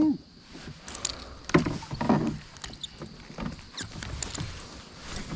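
Scattered light knocks and clicks of fishing gear against an aluminum boat, coming at irregular moments, with faint water noise around the hull.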